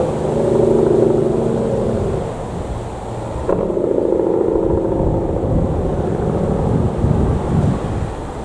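Airbus A319-132's IAE V2500 turbofans at takeoff thrust during the takeoff roll: a steady jet drone with several held tones over a low rumble.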